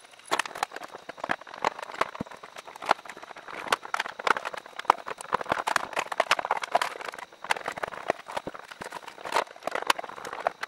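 Sandpaper rubbed by hand along the edges of a wooden box in quick, irregular short strokes: a rasping scratch with sharp ticks and knocks mixed in.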